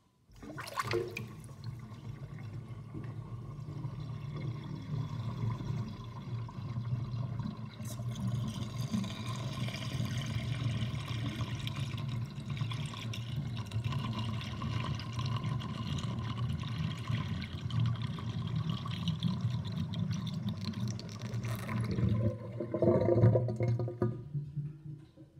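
Water draining from a kitchen sink through its plug drain with the overflow covered, swirling down in a whirlpool with a steady rush and gurgling. It starts suddenly, turns to louder gurgling about 22 seconds in, then dies away near the end as the sink empties.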